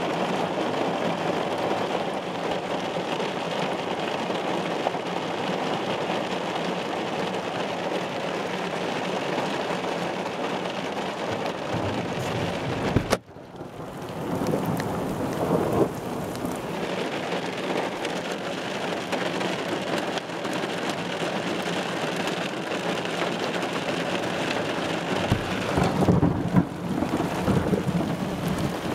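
Heavy rain beating steadily on a car's roof and windows, heard from inside the car, with a low rumble of thunder near the end. The sound cuts out briefly about halfway through.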